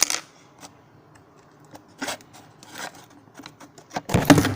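Small hard plastic action-figure parts being handled and fitted, giving a sharp click at the start and short scrapes and rubs. A louder bump and rustle about four seconds in is the loudest sound.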